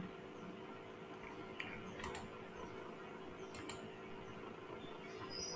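A handful of faint computer mouse clicks, some in quick pairs, over a low steady hum.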